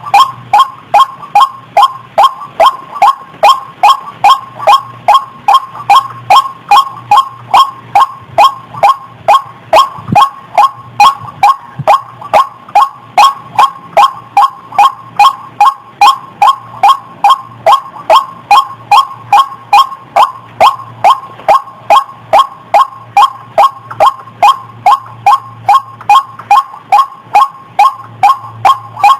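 White-breasted waterhen (ruak-ruak) calling a long, steady run of short, harsh notes, about two to three a second, played back as a lure call for catching the bird.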